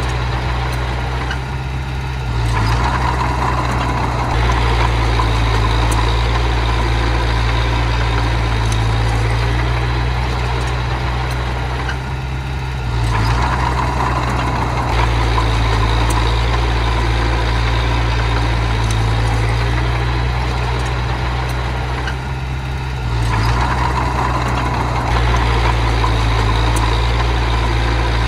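Small bulldozer's diesel engine running continuously while pushing soil. Its note drops, then rises again in two steps, in a cycle that repeats about every ten seconds.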